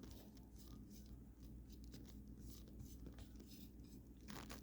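Near silence with faint, soft scratching and rustling, as shredded coconut flakes are spread over the pan's layers. The rustle is slightly louder near the end.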